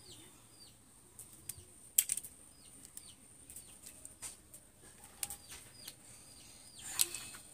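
Sharp little clicks and clacks of freshwater snail shells being handled, pricked with a pin and dropped into a basin, with two louder clacks about two seconds in and near the end. Short high chirps repeat faintly in the background.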